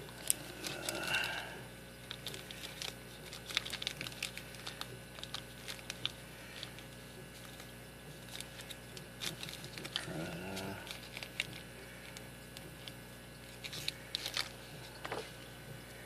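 Light, irregular clicks and taps of a brass-bodied padlock and small metal lock-picking tools being handled.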